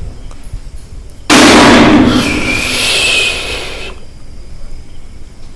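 A sudden, very loud, harsh burst of noise about a second in, lasting over two seconds. It has a shrill wavering tone in its middle and dies away before the end.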